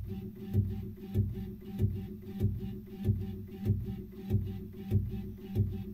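Background music with a steady beat, about one and a half beats a second.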